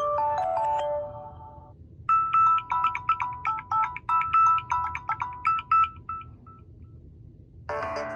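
Samsung Galaxy A01 ringtones playing. One mallet-like melody of descending notes fades out in the first second and a half. After a short gap, another ringtone plays a quick, repeating pattern of bell-like notes for about four seconds and then dies away. A fuller, denser ringtone starts near the end.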